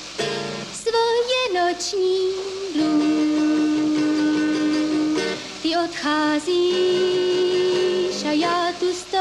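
A solo voice singing a melody, holding long notes with a wavering vibrato and sliding up and down between pitches, with two especially long held notes in the middle.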